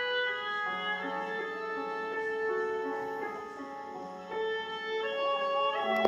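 Instrumental classical-style music with bowed strings playing long held notes.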